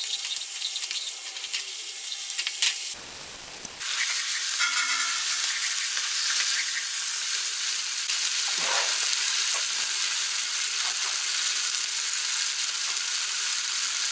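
Paneer, onion and capsicum sizzling in a hot non-stick pan on high flame with soy sauce just added, stirred with a wooden spatula that knocks and scrapes now and then. The sizzle dips briefly about three seconds in, then carries on louder and steady.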